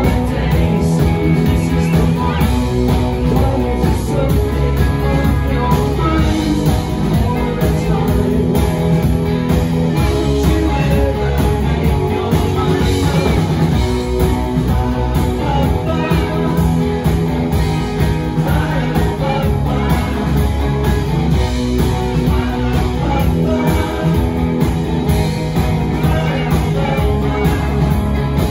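Live rock band playing: two electric guitars, bass guitar and drum kit, with a male lead vocal over the top.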